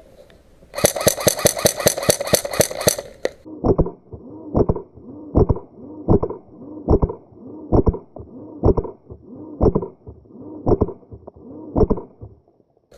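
Airsoft electric rifle firing a full-auto burst of about two and a half seconds, a fast run of sharp clicks. It is followed by about ten dull thuds, roughly one a second.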